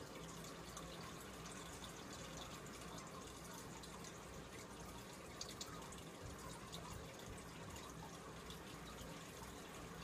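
Aquarium water trickling faintly and steadily, with small scattered drips and a low steady hum underneath.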